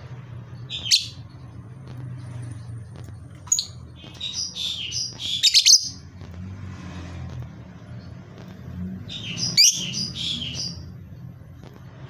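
Lovebird, a blue masked lovebird, giving sharp, high-pitched chirps in bursts: a single chirp about a second in, a chattering run of chirps from about four to six seconds, and another run near ten seconds.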